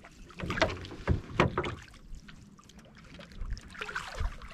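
Handline fishing from a wooden boat: a few sharp knocks against the hull as the line is hauled in by hand, then near the end a hooked fish splashing at the surface as it is pulled from the water.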